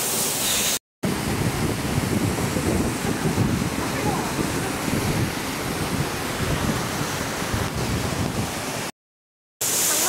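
Rushing water of a waterfall stream, a steady noise, with low, choppy buffeting of wind on the microphone through most of it. The sound cuts out briefly about a second in and again near the end.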